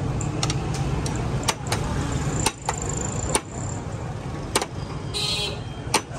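Steady street traffic rumble, with a number of sharp clinks at irregular moments and a short high-pitched beep about five seconds in.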